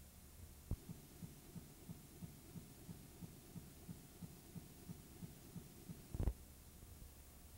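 A near-silent audio track, with faint low thumps about three a second, a click about a second in and a louder thump near the end.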